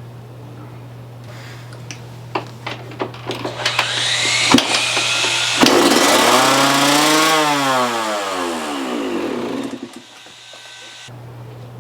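Yamaha YZ125 two-stroke dirt bike engine on a start attempt: a quickening run of pops catches into a brief firing that revs up, then falls steadily in pitch and dies after a few seconds. It does not stay running, a sign that the carburetor problem is not yet cured.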